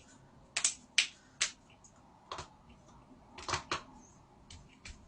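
Joints cracking: about ten sharp pops at irregular intervals, some coming in quick pairs.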